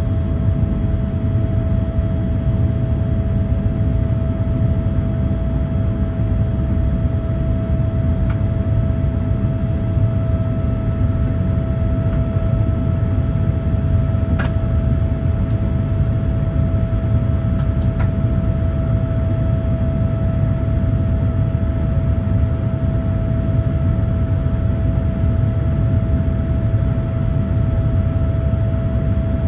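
Steady engine and airflow rumble heard inside the cabin of a Boeing 787-9 climbing after takeoff, with a steady mid-pitched tone running over it. A few faint clicks come about halfway through.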